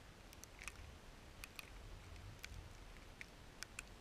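Near silence: a faint low rumble with scattered small, sharp clicks at irregular intervals.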